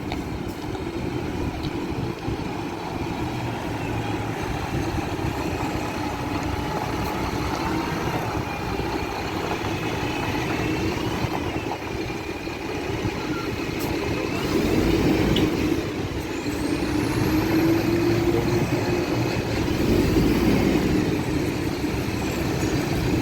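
Concrete mixer truck's diesel engine running, growing louder about fifteen seconds in and again near the end.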